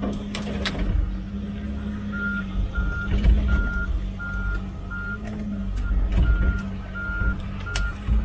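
Mini excavator's diesel engine running steadily, with a reversing alarm beeping about one and a half times a second from about two seconds in, and occasional sharp knocks.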